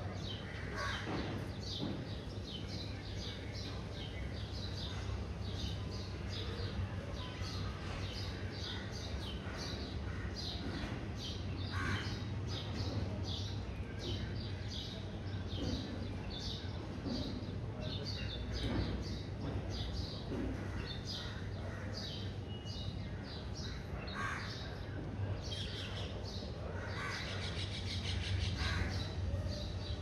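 Parrots calling in a tree: a steady stream of short, high calls in quick succession, with a few louder, harsher calls standing out now and then.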